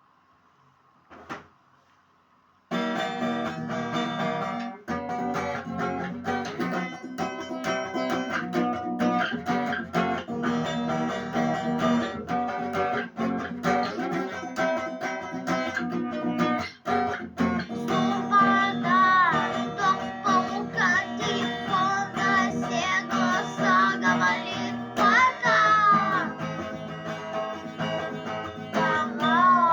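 Rock music with a strummed guitar, starting abruptly about three seconds in after a near-silent opening broken by a single click. A wavering melodic line comes in over the strumming about two-thirds of the way through.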